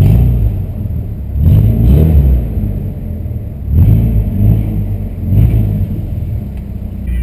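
Volkswagen Santana's 2.0 AP four-cylinder engine being blipped on the throttle, revving up and dropping back about four times, a second or two apart.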